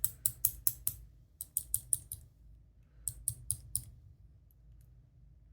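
Quick light metallic clicks from small lock parts as a key pin is worked out of a DOM ix Gamma lock plug, coming in three short bursts of about five clicks a second.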